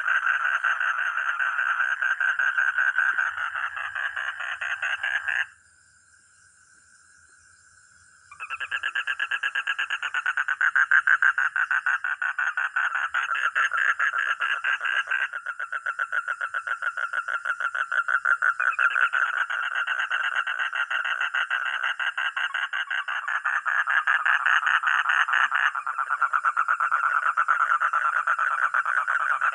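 Frog calling loudly in a fast, continuous pulsed trill. About five seconds in, the call breaks off for nearly three seconds, leaving only a faint thin tone, then starts again and runs on.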